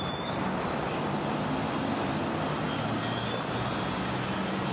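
Steady background rumble of road traffic, a low hum with a constant level and no distinct events.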